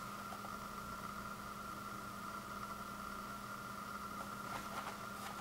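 Steady background hum with a constant high tone and a lower tone. A few faint taps of the cardboard box in the hands come near the end.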